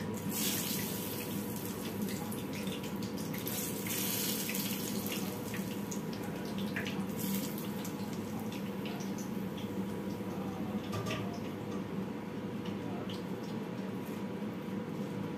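Leftover fish-frying oil spooned over pounded red chillies in a stone mortar, hissing in short bursts about three times, over a steady background hum.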